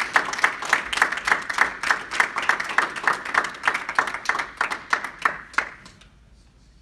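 Small audience applauding with hand claps, which die away about six seconds in.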